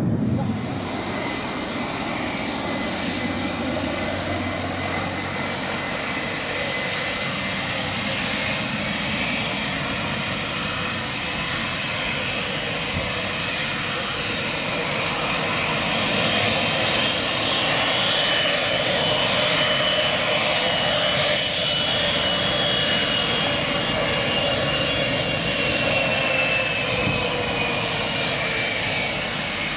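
Airliner engines running steadily, a dense roar with high-pitched whines that slowly fall in pitch, swelling a little louder about halfway through.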